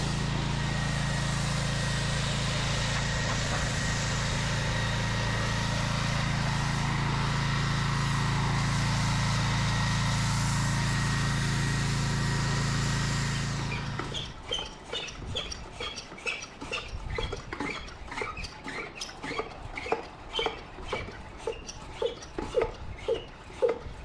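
An engine runs steadily with a hiss over it, then stops abruptly about two-thirds of the way through. A run of short, high chirps or squeaks follows, a few each second.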